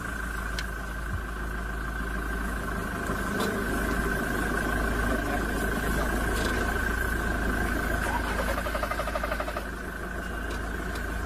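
Engine idling steadily: a constant low hum with a steady high-pitched whine above it.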